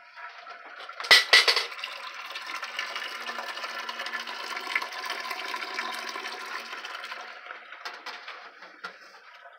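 Goat milk pouring in a steady stream from a stainless strainer bowl into a stainless steel milk container, a continuous splashing that fades near the end. A couple of sharp metal clanks about a second in are the loudest sounds.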